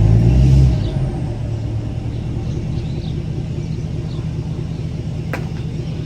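Vehicle engine pulling hard under a heavy load that will not move forward, then dropping back to a lower, steady run about a second in.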